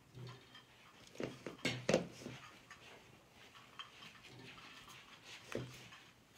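A few light knocks and clatters of kitchenware being handled and set down, spaced irregularly with quiet between them; the loudest come together about two seconds in.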